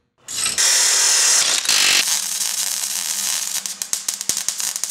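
Produced sound-effect sting under a channel logo: a loud burst of hiss, then a run of rapid mechanical clicks over a steady low hum.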